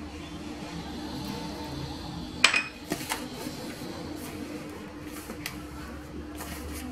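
A small glass bowl clinks sharply as it is set down on a granite countertop about two and a half seconds in, followed by a couple of lighter knocks. Underneath, hands work crumbly flour-and-butter pastry dough in a plastic bowl.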